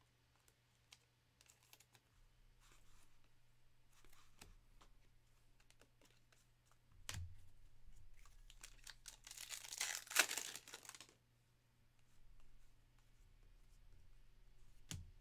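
A foil wrapper of a 2024 Topps Series 1 hobby pack being torn open. It is one crinkly rip of about two seconds, a little past the middle, and the loudest thing here. Around it are faint clicks and taps of baseball cards being handled, and a soft thump shortly before the tear.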